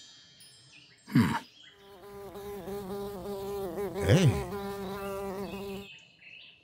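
An insect buzzing: a steady, wavering buzz lasting about four seconds that swoops up and then down in pitch about two-thirds of the way through. It is preceded about a second in by a short, loud falling tone.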